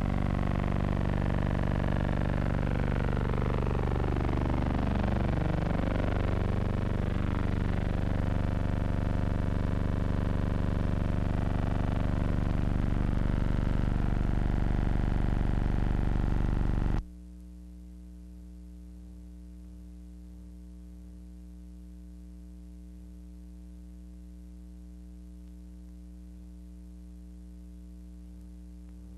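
Steady aircraft engine drone with sweeping changes in pitch as it passes. It cuts off abruptly about two-thirds of the way through, leaving a steady electrical hum.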